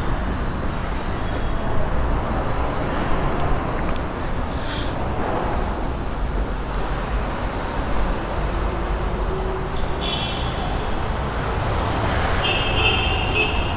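Steady road traffic on a busy multi-lane road, a continuous rumble of passing vehicles, with a few short high-pitched tones about ten seconds in and again near the end.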